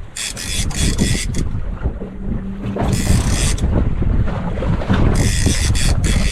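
Wind buffeting the microphone on a boat at sea, a constant low rumble, with the hiss of sea water surging in and out several times.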